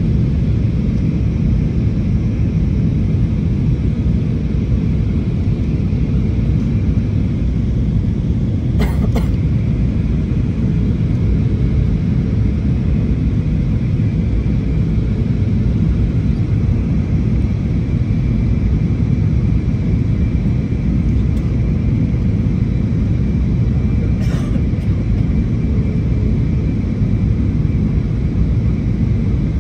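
Steady cabin noise of a jet airliner descending to land, heard from a window seat: a constant low rumble of engines and airflow with a faint steady whine. Two brief clicks come about nine and twenty-four seconds in.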